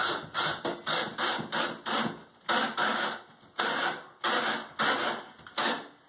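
A large screw being driven through a grab bar into a wooden wall stud, in short, noisy bursts about twice a second.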